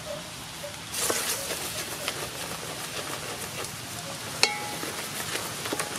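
Julienned ginger and garlic sizzling in hot oil in an aluminium pot, stirred with a wooden ladle, the sizzle growing louder about a second in. A sharp knock of the ladle against the pot rings briefly near the end.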